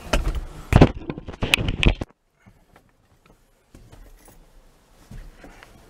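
A camera being handled and set down: a cluster of knocks and scrapes for about two seconds. Then the sound cuts to near silence, followed by faint scattered clicks.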